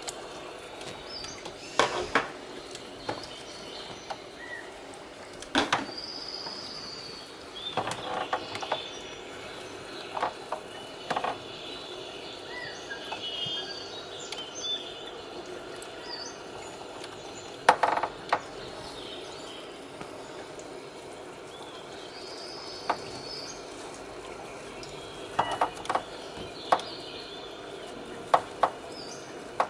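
Small pruning scissors snipping plant stems inside a terrarium: scattered sharp metallic snips, some in quick pairs or threes, over a steady low hiss.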